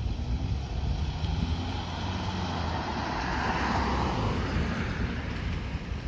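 Wind buffeting the microphone in a steady low rumble, with a broad rushing noise that swells and fades around the middle.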